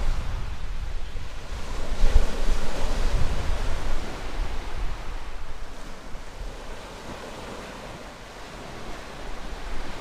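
Black Sea waves washing around a concrete pier, with wind rumbling across the microphone. It is louder in the first few seconds, eases off after about five seconds and picks up again near the end.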